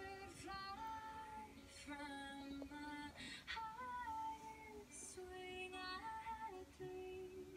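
Background music: a woman singing a gentle, slow melody over a soft plucked-string accompaniment.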